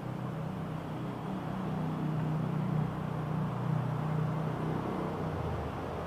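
Steady low machine hum with a rushing noise over it, swelling slightly in the middle.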